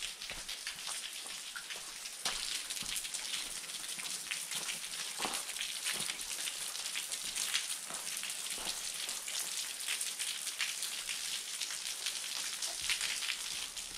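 Steady patter of rain, with water dripping off the lip of a rock overhang in many small drop hits.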